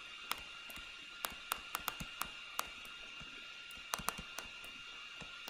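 Stylus tip tapping and clicking against a tablet screen while handwriting: about ten faint, irregular sharp ticks over a steady faint high-pitched whine.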